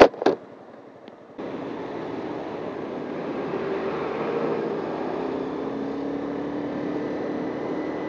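A couple of short sharp knocks at the very start, then, about a second and a half in, the steady sound of a Honda CBR250 motorcycle being ridden: a held engine note under a constant rush of wind and road noise.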